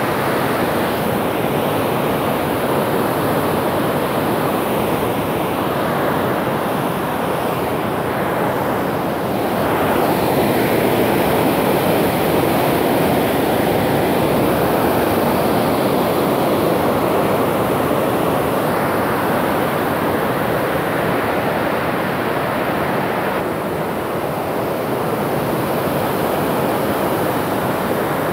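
Floodwater pouring through the open spillway of a hydroelectric dam during the spring release, a loud, steady rush of falling and churning water that swells slightly about ten seconds in.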